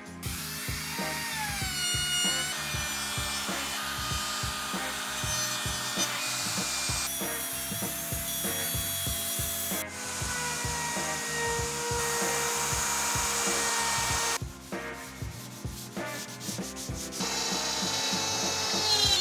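Power tools working wood in a string of short clips with abrupt cuts between them, including an electric router spinning and cutting into a wooden tabletop. The router's motor whine rises and falls in pitch as it speeds up and slows.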